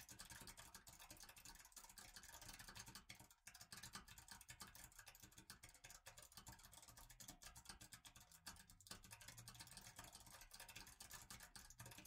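Faint typing on a computer keyboard: scattered, irregular keystrokes.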